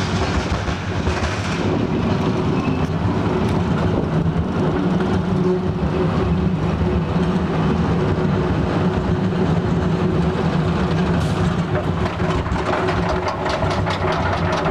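Schwarzkopf wildcat roller coaster train, heard from the front seat, rolling out of the station along the steel track with a steady rumble and a held tone. Near the end rapid clicking starts as the train climbs the lift hill.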